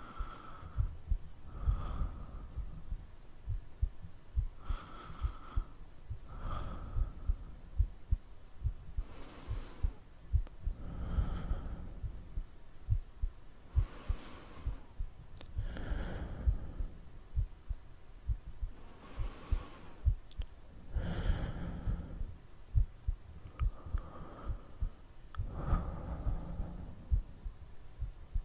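Slow, deep human breathing, with a breath every two seconds or so, over a constant pulse of soft low thumps like a heartbeat.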